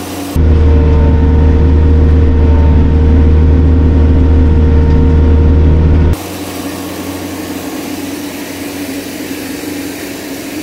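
Kioti RX7320 tractor's four-cylinder diesel engine running steadily while it pulls a chisel plow through the soil. For the first six seconds it is a loud, low drone heard from inside the cab. Then it cuts to a quieter, more open sound of the engine heard from outside, with a hiss over it.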